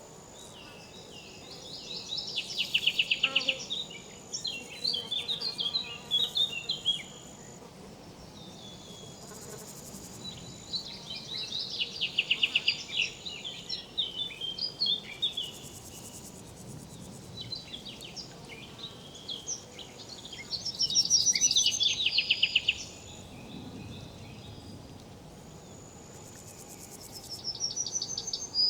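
Insects chirping in bursts of rapid trills every eight or nine seconds, with a faint steady high buzz between them, over the low, even rush of a river.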